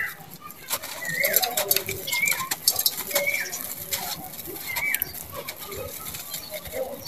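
Gritty crunching and crackling of a dry sand-cement bar crumbling in a hand, with sand and grit pouring down. A bird calls four times in the background, short rising-then-falling notes about a second apart.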